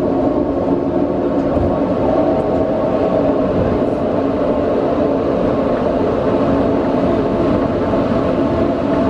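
Steady flight-deck noise of an Embraer KC-390 taxiing, its IAE V2500 turbofans at low thrust: a continuous hum carrying several steady tones, heard from inside the cockpit.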